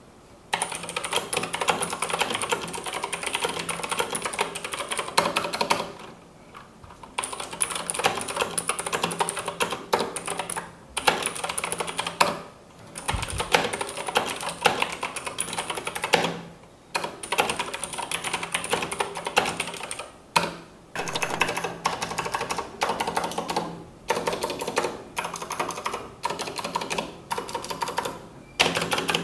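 Typing on an IQUNIX L80 mechanical keyboard with stock Cherry MX Blue switches: rapid, clicky keystrokes in runs, broken by short pauses every few seconds.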